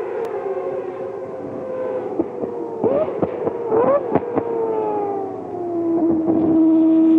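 Mazda 787B's four-rotor R26B rotary engine running at steady revs with a high, sirenlike note, giving two quick throttle blips with sharp pops and crackles about three and four seconds in, then settling to a lower, steady note.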